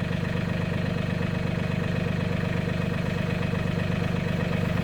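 Mahindra 1626 tractor's diesel engine idling steadily.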